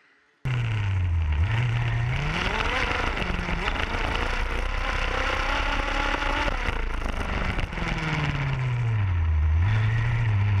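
Zenoah G32 32cc two-stroke engine of an HPI Baja RC car running hard through its tuned resonance pipe. It cuts in suddenly about half a second in. Its pitch dips and climbs back twice and rises steadily in between.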